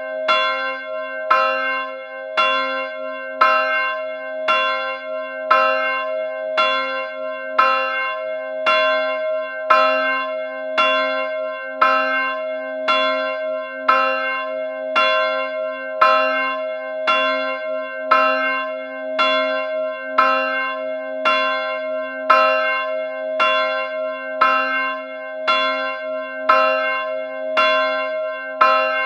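A bell struck over and over at an even pace, about once a second, always on the same pitch, each strike ringing on into the next.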